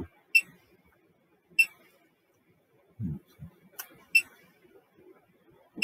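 Short electronic key-press beeps from a programmable bench power supply's keypad as the output voltage is keyed in, five beeps spread out, two in quick succession about four seconds in.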